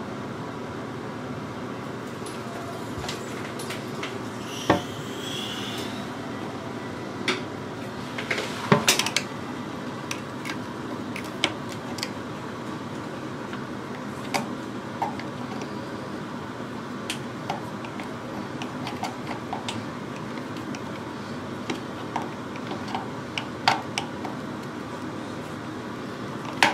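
Screwdriver turning the hinge bolt of a loose toilet seat: scattered small clicks and scrapes of metal on the seat's plastic hinge, a quick cluster of them about nine seconds in, over a steady background hum.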